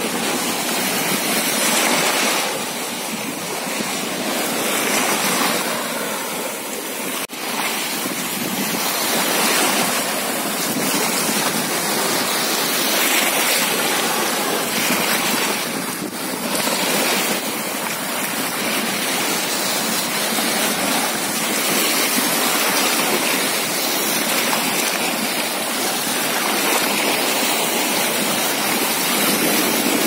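Small waves washing and breaking in the shallows at the shoreline: a steady rushing of surf and foam that swells and eases every second or two.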